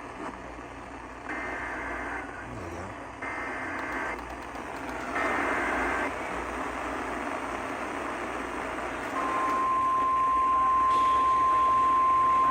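Emergency alert data header heard over a hissy radio receiver: three one-second bursts of two-pitch warbling data tones, a second apart, which open an alert message. About nine seconds in, a loud, steady single-pitch alarm tone begins and holds; this is the NOAA Weather Radio 1050 Hz warning alarm tone that precedes a severe thunderstorm warning.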